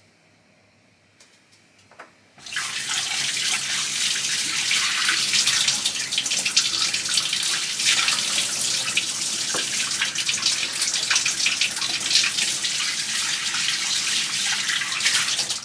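Water running and splashing steadily, starting about two and a half seconds in and cutting off near the end.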